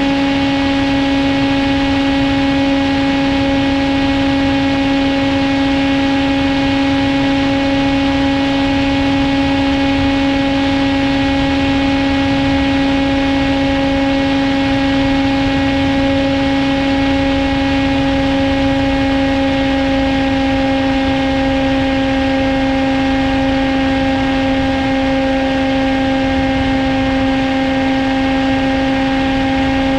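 TBS Caipirinha 2 flying wing's electric pusher motor and propeller holding a steady drone at cruise throttle, heard from the on-board camera with a hiss of wind over it.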